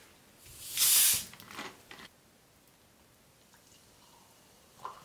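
Screw cap twisted open on a plastic bottle of Coca-Cola, releasing the built-up carbonation: one loud, sharp hiss about a second in, followed by a few softer fizzing crackles.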